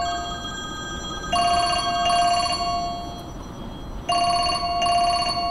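Telephone ringing in a truck cab in a double-ring pattern: a pair of short rings about a second in and another pair about four seconds in, over steady low road noise.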